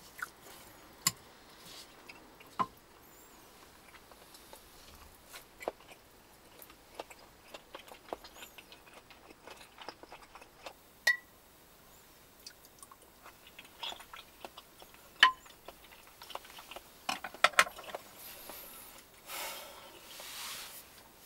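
Eating with chopsticks: chopsticks clicking and clinking against a small pan and dishes, a few clinks ringing briefly, with quiet chewing between them. A short rustle comes near the end.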